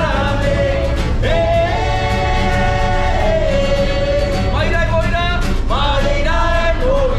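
Music with singing: a voice holding long, sliding notes over a steady instrumental accompaniment.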